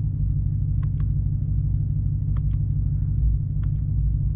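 Ram TRX's supercharged 6.2-litre V8 idling with a steady low rumble, heard from inside the cab. A few faint clicks, some in pairs, come through as the steering-wheel buttons scroll the dash menus.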